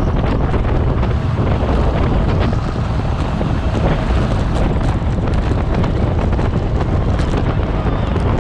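Wind buffeting the microphone of a bicycle-mounted camera while the bike is moving at speed: a steady low rush, with scattered light clicks and knocks throughout.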